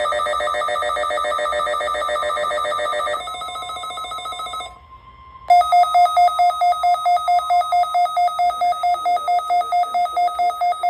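Weather alert radio receivers sounding their electronic alarms for a severe thunderstorm warning. A fast warbling trill runs for about three seconds, then changes to a quieter pattern. A short steady tone sounds near the middle, followed by sharp, loud beeping about four times a second.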